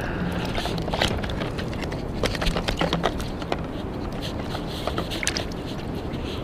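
Steady wash of sea water around a wading angler, with scattered small clicks and splashes, thickest in the middle.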